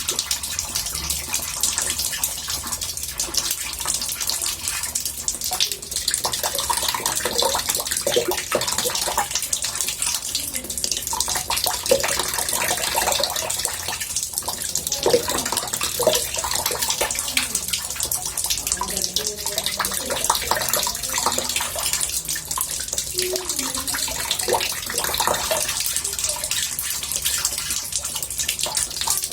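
Water running from a tap into a bathtub, a steady splashing rush.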